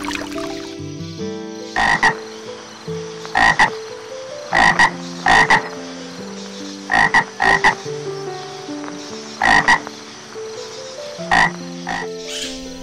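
A frog croaking: short loud calls, mostly in pairs, every second or two, over a background melody.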